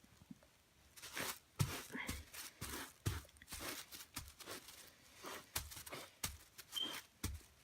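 Towel rubbing and wiping a rubber RC car tire wet with WD-40: a run of irregular short scuffs and scratches.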